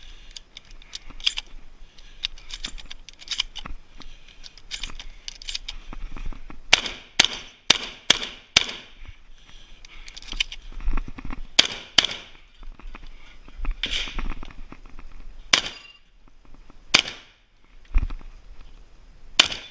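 Shotgun shots fired during a practical-shooting stage. Sharper, fainter cracks come first, then a quick string of about five shots, then single shots spaced a second or two apart.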